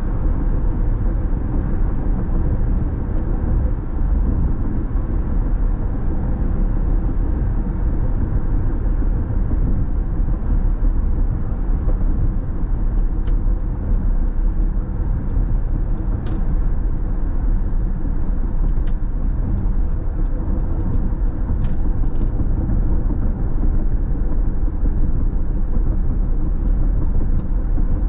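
Steady road and tyre noise with engine hum heard inside a car's cabin while cruising on the freeway. A few faint clicks come through around the middle.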